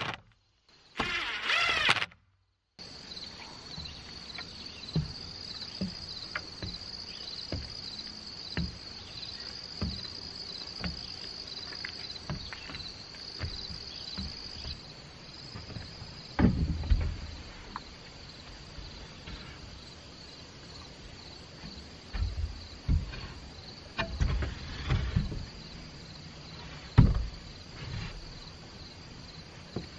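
A cordless drill whines up briefly, driving a Torx-head screw through a metal H1 truss clip into the wood. A steady high insect chorus follows, with scattered knocks and a few heavier thumps from lumber being handled.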